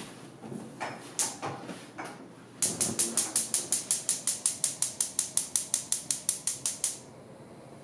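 Gas stove's electric spark igniter clicking rapidly and evenly, about six clicks a second for around four seconds, while a burner is being lit. A few scattered knocks and handling sounds come before it.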